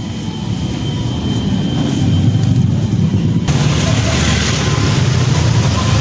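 Motor scooter engine running with a low rumble close by, amid street noise that jumps up suddenly about halfway through.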